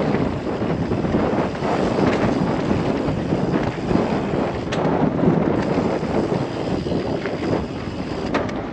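Wind rushing over the microphone as a mountain bike rolls fast down dry dirt singletrack, its tyres rumbling on the trail, with a couple of sharp clicks from the bike over bumps, about five seconds in and near the end.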